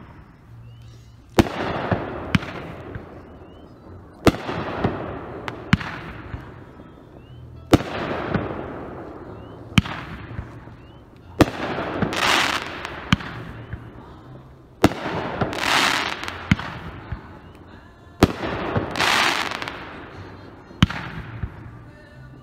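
Brothers Pyrotechnics "Kickstart" multi-shot aerial firework: a string of about a dozen sharp shell bursts, one every one and a half to two and a half seconds, each trailing off in a rolling echo. A few of the breaks are followed by a crackling hiss.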